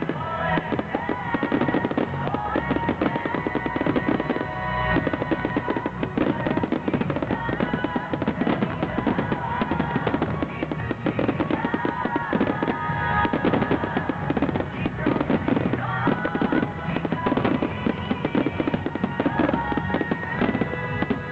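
Music starmine fireworks: a dense, continuous barrage of shell bursts and crackling, set against music.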